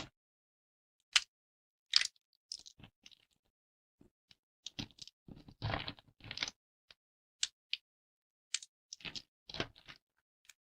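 Thin dry soap plates snapping and crunching as they are broken, in scattered sharp cracks and a longer crunch about halfway through.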